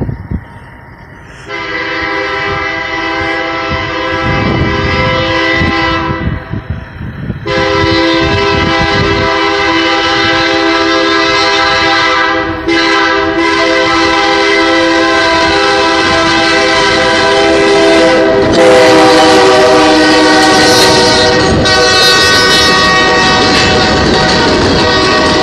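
EMD GP-series ('Geep') diesel freight locomotive's multi-chime air horn sounding long blasts for a grade crossing as it approaches, with short breaks between them. The horn keeps blowing as the locomotive passes close by, joined by the rumble and rattle of the train going past.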